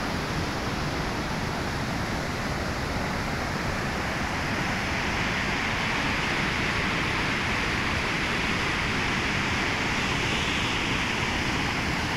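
Fast mountain river rushing over boulders in whitewater rapids: a steady roar of water that grows brighter and hissier about four seconds in.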